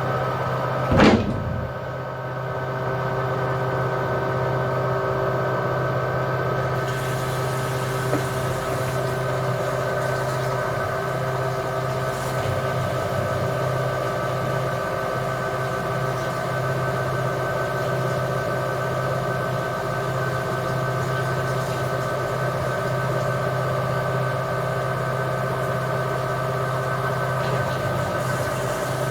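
LG washing machine on its spin cycle, the drum spinning at a steady speed with an even hum and motor whine. A loud thump about a second in.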